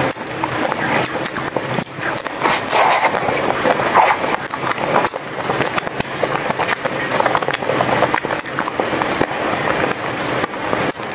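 Close-miked biting and chewing of a pink-coated ice cream bar, the frozen shell crackling and crunching in many short, irregular snaps.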